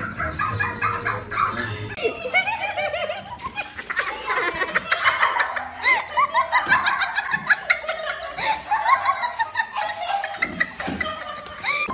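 People laughing hard in quick repeated bursts, starting about two seconds in.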